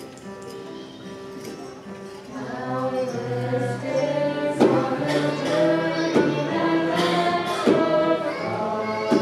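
Choir singing with musical accompaniment, swelling louder about two seconds in, with a sharp beat struck roughly every second and a half.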